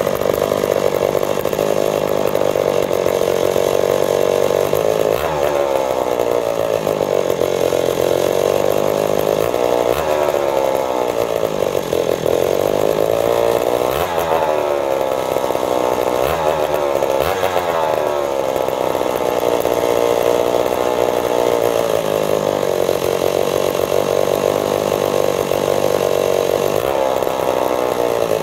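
1961 West Bend 820 Power Bee single-cylinder two-stroke go-kart engine running loud and being revved up and down by hand at the throttle, its pitch repeatedly rising and falling.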